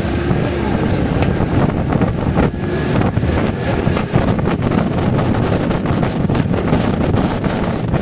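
Wind buffeting the microphone in irregular gusts over the low rumble of a moving vehicle and road traffic.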